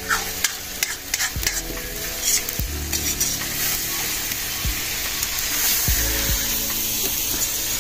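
Chicken karahi frying with a steady sizzle in a karahi pan over a wood fire, while a metal spoon stirs it, scraping and clinking against the pan now and then.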